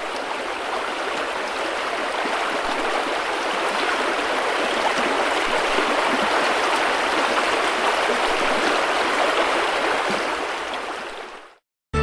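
Mountain torrent rushing over rocks, a steady rush of water that fades out shortly before the end.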